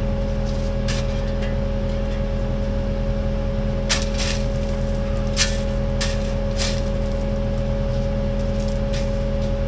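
Kubota KX080 excavator's diesel engine running at a steady speed, with a scatter of sharp knocks and clinks over it, the loudest about four and five and a half seconds in.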